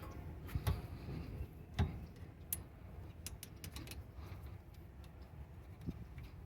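Scattered, irregular light clicks and knocks of tools and brake parts being handled as a rear brake caliper is refitted over new pads.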